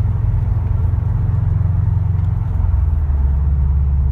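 Turbocharged 2.5-litre flat-four engine of a 2013 Subaru WRX STI, heard from inside the cabin while driving, with a steady low rumble. The engine note drops lower about two and a half seconds in.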